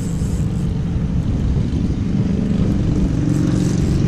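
Steady low engine rumble with a faint, even hum.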